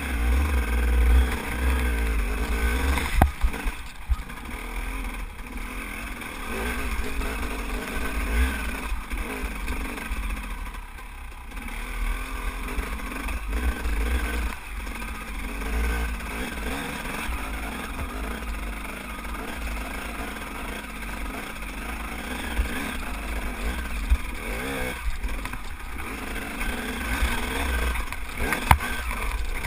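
Dirt bike engine revving up and down as it is ridden over a rough, rocky trail, with heavy low rumble from the wind buffeting the camera microphone. A few sharp knocks, about three seconds in and again near the end, come from the bike jolting over rocks.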